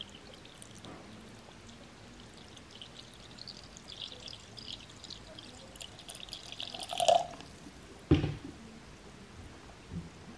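Water poured from a plastic bottle into a glass jar of rice for a doburoku rice-wine mash, the trickle growing louder and stopping about seven seconds in. A sharp thump follows about a second later, with a smaller knock near the end.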